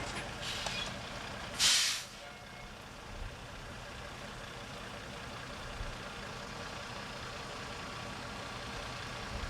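Air brakes on the truck hauling a five-axle modular-home trailer: a short hiss near the start, then a loud sharp hiss of air released about a second and a half in. After it the truck's engine idles low and steady.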